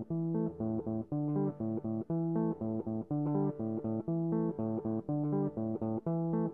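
Background music: a melody of short, evenly paced notes over a lower line.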